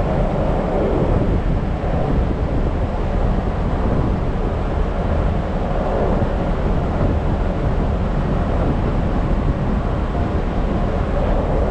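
Steady wind buffeting the microphone over the low rumble of a ferry under way as it turns away from the pier.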